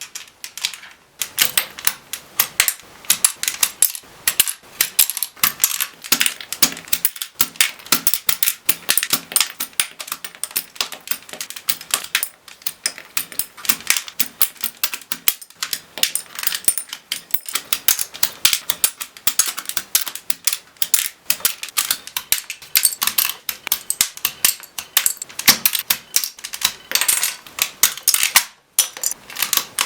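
Rapid, dense plastic clicks and clacks of mechanical keyboard keycaps being worked on a Razer Huntsman Tournament Edition keyboard, several a second, with a brief pause near the end.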